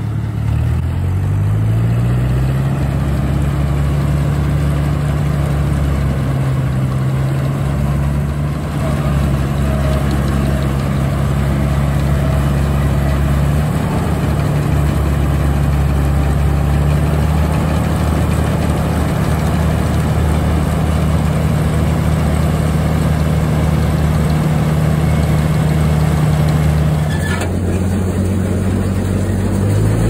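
Old combine harvester running in the wheat, its engine and threshing machinery going steadily. The engine pitch rises about a second in and then holds, with an abrupt change in the sound near the end.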